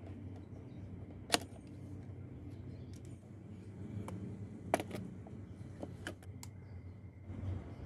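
Two sharp clicks and a few lighter ticks as the PVC sheet frame and small metal parts of a homemade scroll saw are handled on a wooden bench, over a steady low hum.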